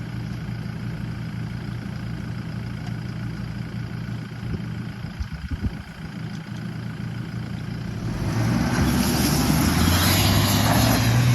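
Toyota Hilux engine running steadily, with a few knocks about halfway. About eight seconds in it revs up hard under load, with a rush of noise, as the pickup powers up a sand dune.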